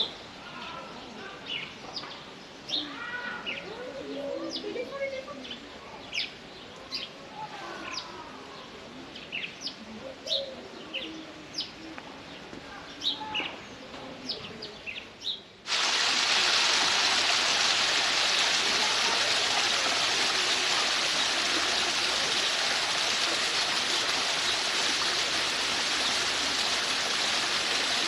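Small birds chirping repeatedly, then a little past halfway the sound cuts abruptly to a loud, steady rush of falling water from a waterfall.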